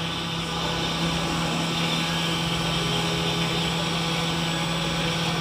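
Hot air rework station blowing steadily: an even hiss of air over a low motor hum. It is heating a phone's charging jack to melt the solder and lift the jack off the board.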